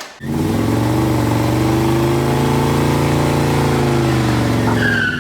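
Chevy 305 small-block V8 running on an engine stand, its speed rising gently and easing back down, then cut off abruptly.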